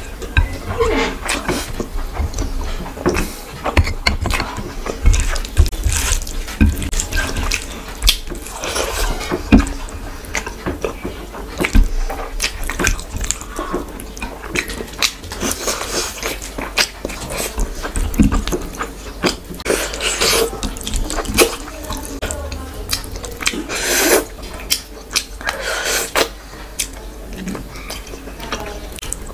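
Close-miked eating: fingers squishing rice mixed with curry on a plate, and wet chewing and lip smacks, in irregular short clicks and squelches.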